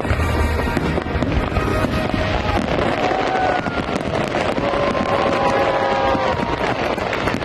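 Fireworks display at its close: dense crackling and popping, with several held tones sounding one after another over it partway through.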